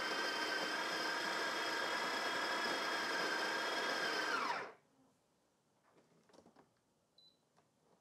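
Breville Barista Touch Impress's built-in conical burr grinder running steadily as it grinds coffee beans into the portafilter. Its pitch drops as the motor winds down, and it stops about four and a half seconds in. A few faint taps follow.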